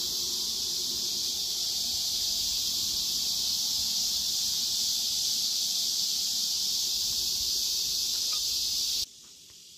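Steady high-pitched insect chorus, a continuous shrill buzz with a faint low rush beneath it, cutting off suddenly about nine seconds in.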